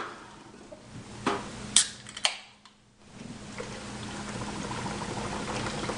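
Beer cans snapping open with a few sharp hissing pops about a second or two in, then, from about three seconds in, beer pouring steadily from two cans at once into a plastic bowl.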